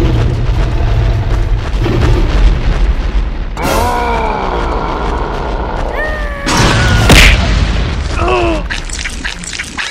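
Cartoon fight sound effects over a deep booming rumble: a cry falling in pitch about four seconds in, a loud noisy burst about seven seconds in, and another short falling cry about a second later.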